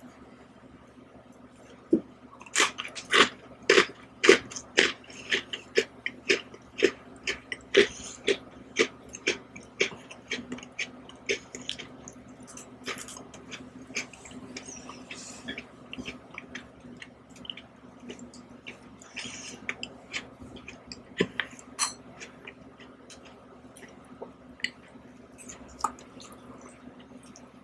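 Close-miked eating sounds from an Oreo ice cream cake: a run of crisp crunches at about two a second, chewing through the Oreo cookies and ice cream. About halfway through they thin out to occasional single clicks.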